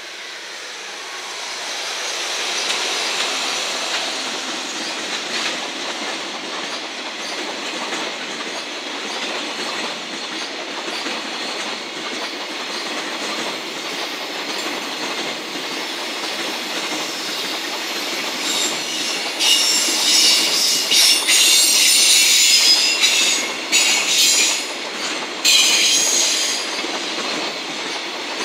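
Container freight train hauled by an EF210 electric locomotive passing close by. The locomotive's noise builds over the first few seconds, then the flatcars' steel wheels run steadily over the rails. About two-thirds of the way through, a loud, high-pitched wheel squeal comes and goes for several seconds as the wheels scrape through the curve.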